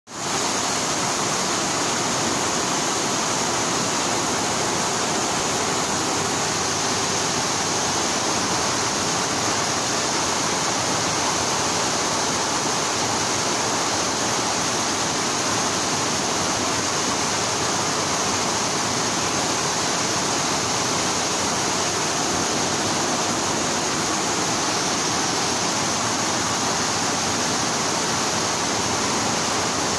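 Multi-head computerized embroidery machines running, their fast needle action blending into a loud, steady, even noise.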